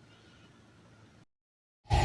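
Near silence with faint room hiss, cutting to dead silence a little past the first second, then loud music starting abruptly just before the end.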